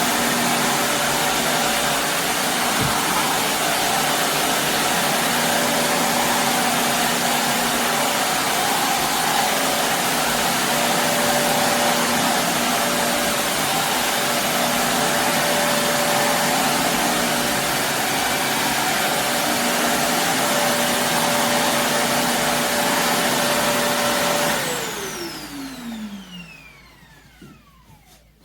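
Shark Navigator Lift-Away upright vacuum running steadily while vacuuming carpet, then switched off about 24 seconds in, its motor whine falling in pitch as it spins down.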